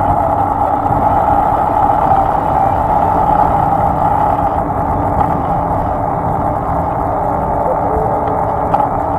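Steady running drone of a vehicle moving along a road: a constant band of noise with a faint hum beneath it, holding level throughout.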